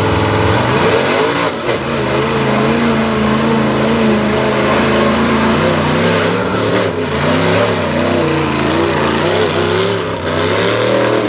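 Engine of a lifted Mercedes-Benz sedan mud car on oversized mud tires, revving hard under throttle as it runs a dirt course. The pitch climbs about a second in, then surges up and down with the throttle, and climbs again near the end.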